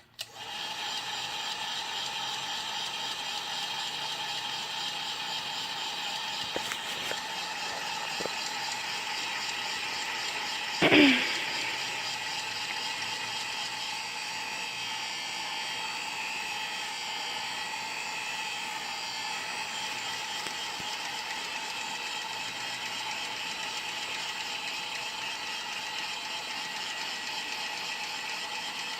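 Heat gun blowing hot air steadily, with a constant motor hum, to soften the adhesive under a phone screen. About eleven seconds in, a brief, loud sound falls quickly in pitch.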